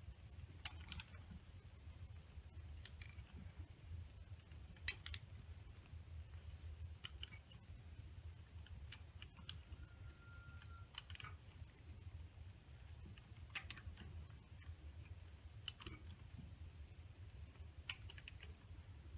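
Faint sharp clicks every second or two from a wrench being worked back and forth in small increments on a seized exhaust manifold bolt, frozen in place with rust, over a low steady hum. A brief faint squeak comes about ten seconds in.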